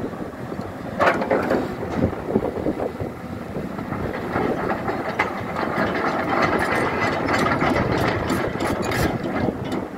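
Hyundai R210 crawler excavator travelling on its steel tracks: the diesel engine runs under a dense, irregular clatter of track links and rollers.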